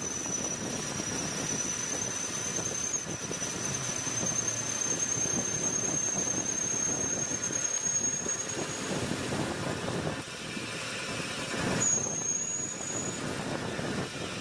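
Metal cutting on a lathe with a steady, slightly wavering high-pitched squeal over rough machining noise. The squeal dips briefly about three seconds in, fades out around nine seconds, and a shorter, higher squeal comes in near the end.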